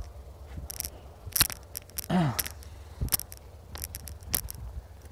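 Irregular sharp metallic clinks of a dog's chain leash and footsteps on a stony dirt track, over a low rumble of the phone microphone being carried. A short falling whine sounds about two seconds in.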